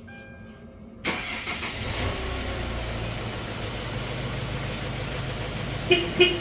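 Hyundai Grand Starex van engine cranking and catching about a second in on a remote start command, then settling into a steady idle. Two short loud beeps near the end.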